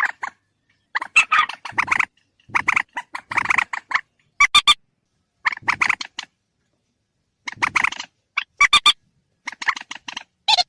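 Recorded calls of a mandar, a rail, played as a hunting lure. The bird gives about seven bursts of rapid, harsh, stuttering notes with short pauses between them.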